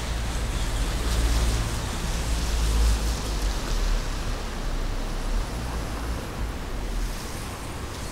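Wind buffeting the microphone, a low uneven rumble that is strongest in the first half and eases off, over a steady hiss of outdoor ambience on a wet street.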